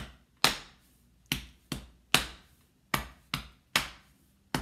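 Body percussion: hands striking the body in a steady repeating rhythm, three quick hits per bar with the third the loudest, repeating about every second and a half.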